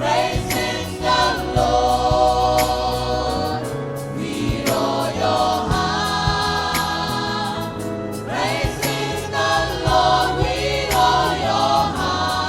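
Gospel praise choir singing together over instrumental accompaniment, with a steady beat and held bass notes.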